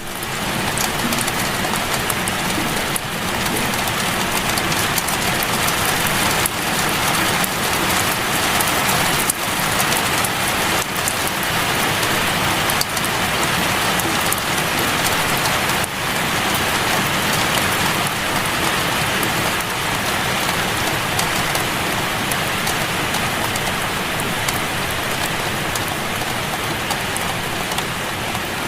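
Steady heavy rain falling, a dense hiss of drops with scattered individual drop ticks, coming in suddenly out of silence at the very start.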